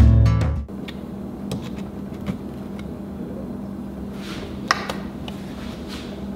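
Background music cuts off under a second in, leaving a steady low hum and a few small scattered clicks and taps of a screwdriver working on a rifle scope's mounting rings.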